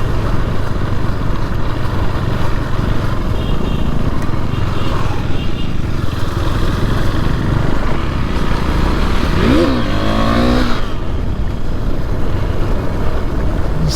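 KTM Duke 390 motorcycle running steadily under way, its engine mixed with heavy wind and road noise on the rider's microphone. About ten seconds in, a short tone briefly rises and falls in pitch over it.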